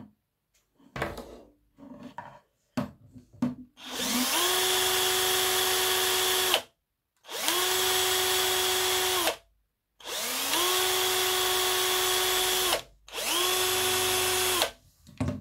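Cordless drill spinning a bicycle bottle dynamo, run four times in bursts of about two seconds, each spinning up with a rising whine to a steady pitch and then stopping abruptly. Before the first run, a few light clicks as the wire clips are handled.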